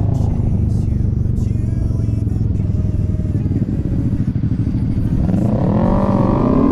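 Honda Forza 250 scooter's single-cylinder engine running under way, with steady engine and road noise. Near the end the engine pitch rises and then falls back.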